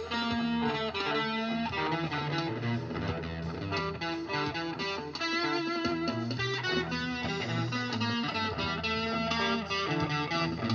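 Electric guitar played through overdrive and boost pedals with delay and reverb, a continuous run of sustained notes and chords.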